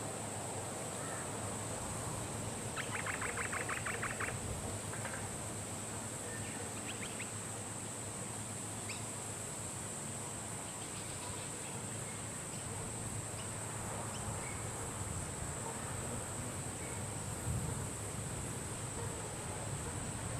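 Macaws billing, with a rapid run of clicking chatter about three seconds in and a few faint short calls later, over a steady high-pitched whine and a low hum.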